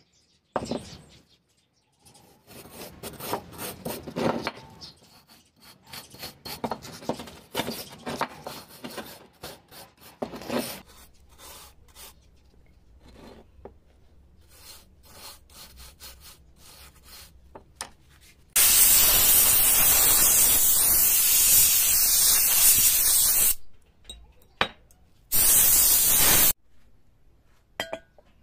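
Stiff plastic-bristled brush scrubbing loose rust and dirt off an old rusty metal bubble level in quick, uneven rasping strokes, then fainter scraping. Later a much louder steady rushing hiss lasts about five seconds and returns once briefly.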